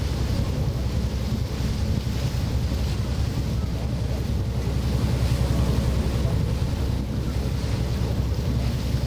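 Tour boat's engine running with a steady low drone, with wind buffeting the microphone and the rush of water along the hull.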